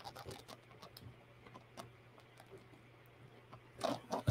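Faint handling of cardstock sheets on a tabletop: soft rustles and light taps as paper is slid and pressed into place, with a brief louder brush of paper near the end.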